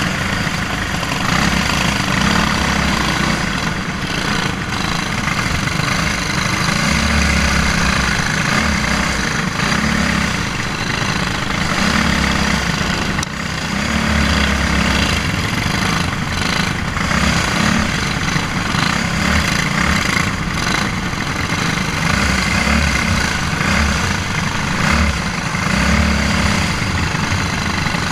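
Racing kart's Briggs & Stratton Animal single-cylinder four-stroke engine running hard at racing speed, heard onboard, its note swelling and easing every second or two through the corners, with a steady rush of noise over it and other karts' engines close by.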